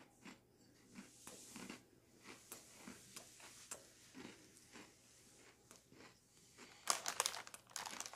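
Faint chewing of an Oreo cookie, with soft crunches and small mouth clicks, and a louder spell of crinkly crackling about seven seconds in.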